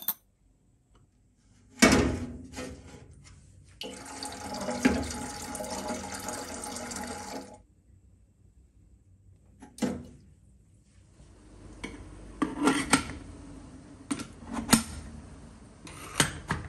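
Clicks and knocks of an aluminium puttu steamer's lid and tubes being handled. Water runs from a tap for about four seconds. Then come more metal clinks over a faint steady hiss.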